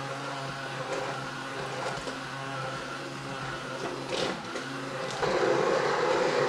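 Handheld immersion blender running in a crock pot of cooked apples, puréeing them into apple butter. The motor runs steadily and gets louder about five seconds in.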